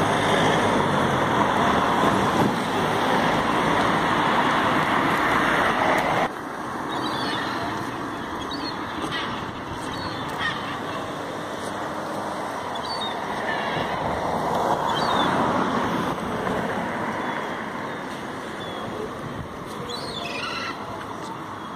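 A loud, steady rushing noise that cuts off abruptly about six seconds in. After it, gulls give short, scattered cries over the low wash of the sea on rocks, which swells for a few seconds in the middle.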